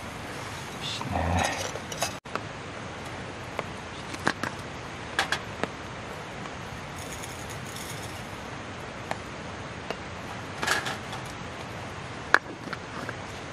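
Scattered light clinks and taps of tableware being handled and set down on a metal mesh camp table, with a fuller clatter about a second in, over a steady background hiss.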